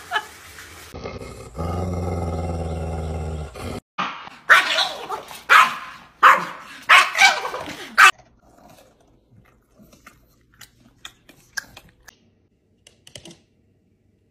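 Small dog barking excitedly at a squirrel, about six loud, sharp barks in quick succession. Before the barks there is a steady low hum lasting about two seconds, and after them only faint light ticks.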